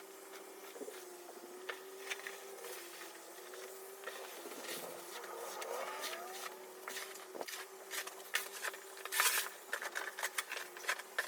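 Snow Joe ION100V cordless snow blower's electric motor running with a steady hum, while sharp clicks and scrapes come thicker and louder in the second half.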